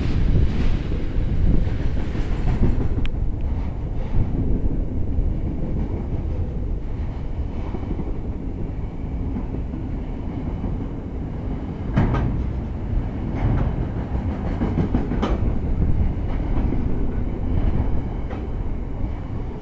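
Freight train of container flat wagons, some loaded and some empty, rolling past: a steady rumble of steel wheels on rail with a few sharp clanks, the clearest about twelve and fifteen seconds in.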